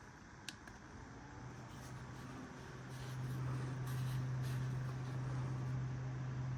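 A device gives off an abnormal, noisy low hum that swells in and then holds steady, the fault noise that starts when it is turned from sideways to face downward. A sharp click comes about half a second in.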